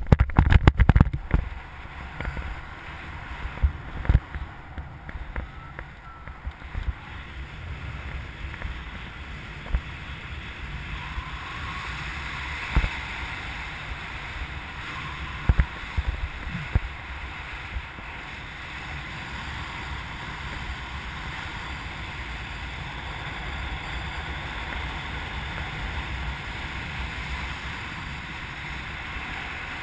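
Wind rushing over the microphone of a camera mounted on a hang glider in flight, a steady rushing noise. It follows a cluster of knocks and thumps in the first couple of seconds as the glider comes off the wooden launch ramp, and a few single knocks come later.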